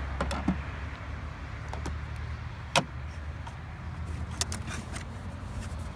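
Scattered clicks and taps of plastic parts and packaging being handled, the sharpest about three seconds in and again a little later, over a steady low rumble.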